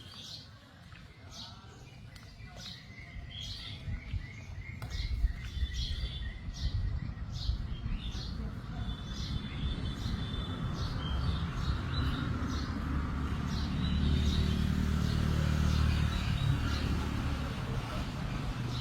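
A bird chirping in repeated short, high chirps, about two a second. A low rumbling noise builds from about five seconds in and becomes the loudest sound, while the chirps fade.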